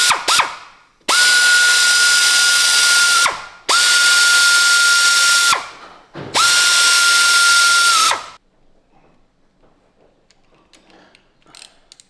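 A power driver running in three bursts of about two seconds each, a steady high whine over a hiss, each cutting off sharply with a short spin-down, as it runs down the valve cover bolts on a Kawasaki Z1 cylinder head. Faint clicks follow near the end.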